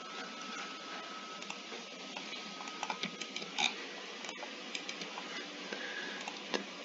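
Scattered clicks of a computer mouse over a steady room hiss, with a faint thin tone in the first half.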